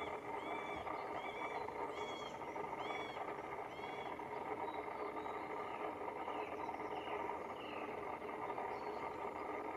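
Middle spotted woodpecker's slow spring call series: short, arched notes repeated about twice a second, breaking off about four seconds in, then three fainter notes near the end. A steady background hiss runs underneath.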